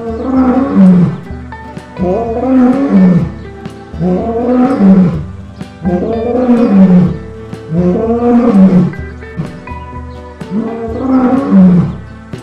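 Lion roaring: six roars about two seconds apart, each dropping in pitch toward its end, over background music.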